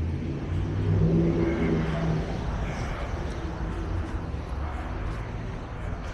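Street traffic: a car engine running close by, loudest about a second in, over a steady hum of city street noise.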